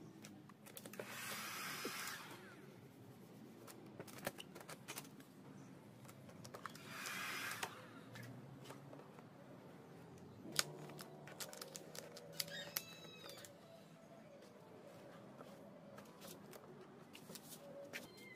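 Matte black vinyl wrap film rustling and crackling as it is stretched and pressed by hand over a scooter's front panel. There are two short rustling bursts, about a second in and again past the middle, with scattered small handling clicks over a faint steady low hum.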